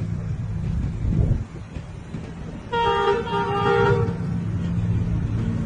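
A horn sounds once for about a second, two notes together, over a steady engine rumble.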